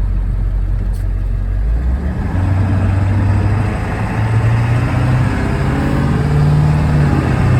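Ford 7.3 diesel V8 engine of a 1999 F-450 plow truck running; about two seconds in its pitch steps up and then rises a little further, as if the revs are raised.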